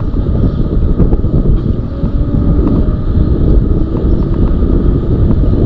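Steady wind rumble buffeting the microphone while riding a Zooz electric bike, with road noise underneath.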